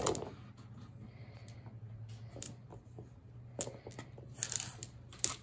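Dice being gathered and rolled on a gaming table: scattered light clicks and rattles in small clusters over a faint low hum.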